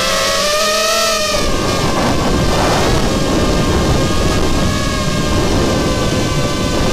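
Racing quadcopter's brushless motors and propellers whining, the pitch rising and falling in the first second or so and then holding steady, with heavy wind rumble on the onboard camera's microphone.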